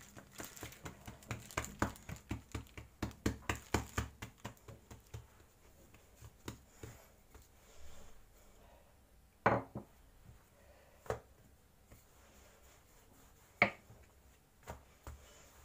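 Hands patting and pressing a ball of dough flat on a floured stone worktop: a quick run of soft slaps, about four or five a second, for the first five seconds or so. Later come a few separate, sharper knocks on the counter.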